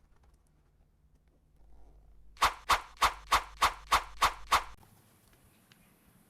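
A sound effect of eight quick, evenly spaced short calls, about three a second, starting a little over two seconds in and stopping abruptly.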